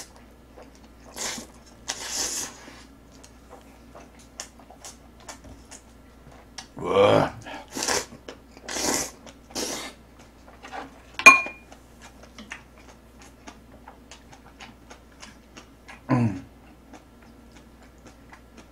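Slurping and chewing of jjapaghetti (black-bean-sauce instant noodles) in short bursts, with faint wet mouth clicks between, and one sharp clink about eleven seconds in.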